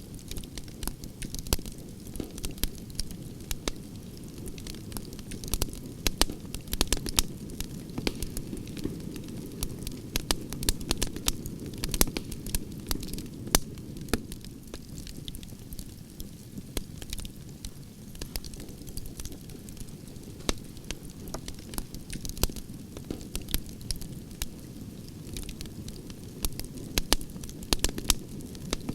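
Campfire of burning logs crackling, with irregular sharp pops and snaps over a steady low rush of flame.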